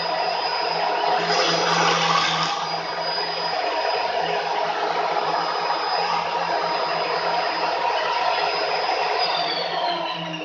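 Homemade table saw's electric circular-saw motor running with a steady whine, briefly louder about two seconds in, then switched off near the end and winding down with falling pitch.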